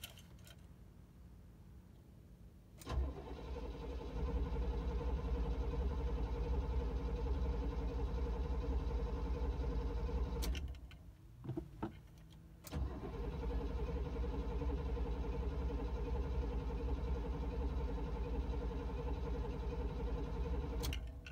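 The starter of a 1976 Cadillac Fleetwood Brougham cranks its 500 cubic inch V8 in two long attempts of several seconds each, with a short pause and a couple of clicks between them. The engine does not catch, which the owner puts down most likely to a sticky carburetor needle and seat.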